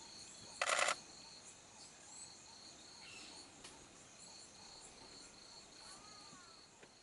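Crickets and other night insects chirping in a steady, high, evenly pulsing trill, with a short burst of rapid clicks about a second in.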